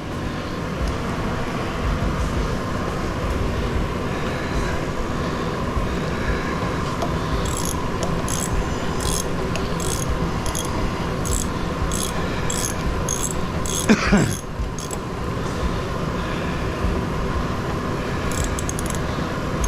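Bolts being worked loose on an industrial electric motor's housing: a run of sharp metallic clicks at about two a second, then one louder clank about two-thirds of the way through. A steady mechanical hum runs underneath.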